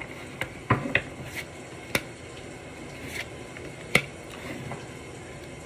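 A deck of tarot cards being handled and shuffled: a few short, sharp snaps and taps of the cards at irregular moments, the loudest about two and four seconds in.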